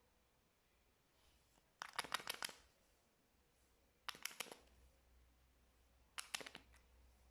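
Slime being squeezed and pressed by hand, giving three short bursts of quick crackling pops about two seconds apart.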